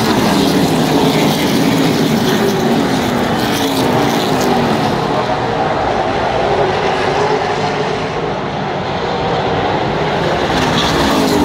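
A field of super late model stock cars, V8 engines running together as a pack circling a short oval. The engine notes rise and then fall in pitch as groups of cars pass.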